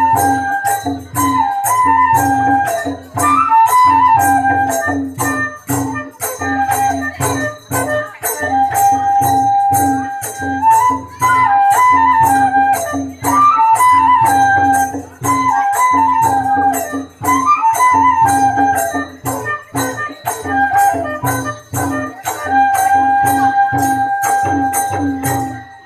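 Bodo folk dance music: a flute melody over a drum and an even, quick beat of small cymbal strokes. The music stops just before the end.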